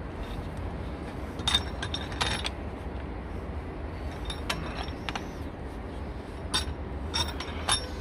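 Red pipe wrench clicking and clinking against a steel meter union as the union is tightened onto its Teflon-taped threads. The clicks come at irregular intervals, several of them, over a steady low rumble.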